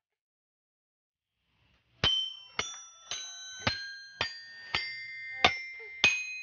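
Children's toy xylophone, its coloured metal bars struck one note at a time with a plastic mallet. Eight notes at about two a second, each ringing briefly and changing pitch, starting about two seconds in.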